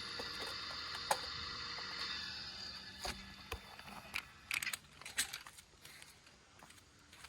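A steady mechanical hum with a few held tones fades out about three seconds in. It gives way to scattered sharp clicks and short crinkling, rustling handling noises.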